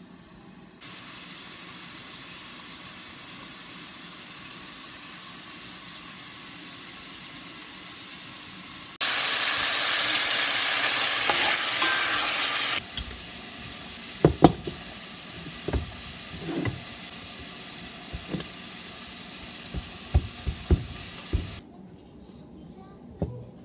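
Chicken tikka pieces sizzling as they fry in a pan, the sizzle loudest for a few seconds near the middle. In the second half a spoon knocks against the pan several times as the chicken is stirred, and the sizzle cuts off near the end.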